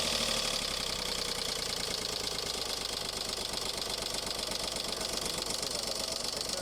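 Skoda Fabia 1.4 TDI diesel engine idling steadily with its accessory belt removed, a dense, even diesel clatter. With the belt off, the alternator pulley and tensioner are out of the drive, so only the engine itself is heard, which the mechanic uses to show the loud noise is not from the engine.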